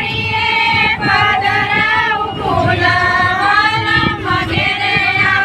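A high singing voice holding long notes that slide up and down, with a low steady accompaniment underneath.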